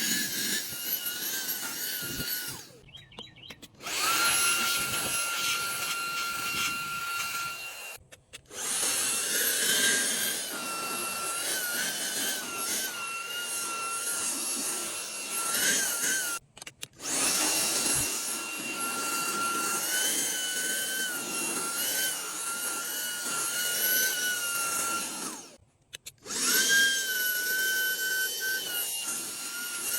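Cordless handheld vacuum running with a steady high motor whine over a rush of suction, its pitch wavering at times as the nozzle works. The sound drops out four times, briefly, and the whine resumes each time.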